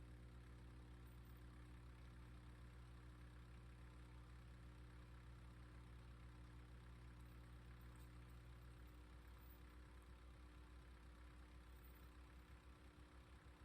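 Faint engine running steadily at idle, a low, even hum whose pitch shifts about nine seconds in and again near the end.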